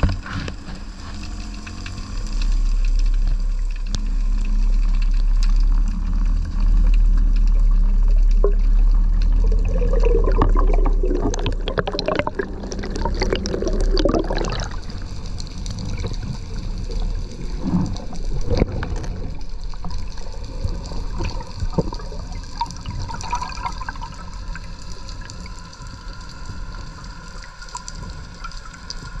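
Water sloshing and bubbling around a spearfisher's camera, over a steady low rumble. It grows louder and choppier, with splashing, for a few seconds near the middle.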